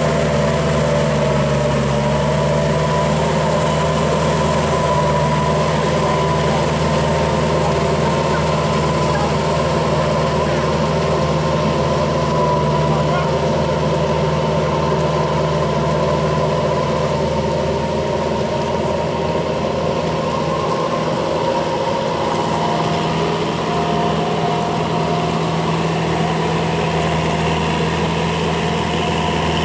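Farm tractor's diesel engine running steadily at a constant speed, with a steady drone; its pitch settles slightly lower a second or two in.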